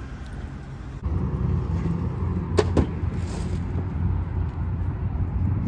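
Vehicle driving on the road: a steady low road-and-engine rumble that gets louder after a cut about a second in. Two quick sharp clicks come a little before halfway.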